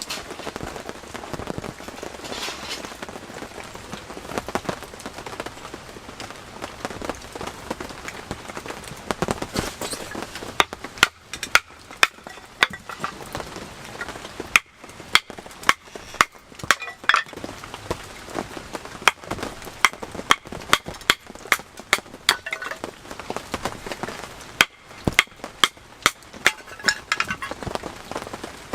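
Rain on an all-cotton canvas tent, a steady hiss. From about ten seconds in, a run of sharp, irregular clicks and knocks, several a second, comes in on top of it.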